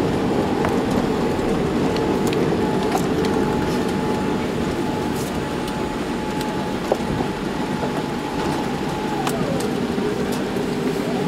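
Cabin noise of a Boeing 787-8 airliner rolling out on the runway after touchdown: a steady rush of engine and airflow noise with a steady whine that slides down in pitch about nine seconds in, easing slightly as the plane slows. Scattered light clicks sound over it.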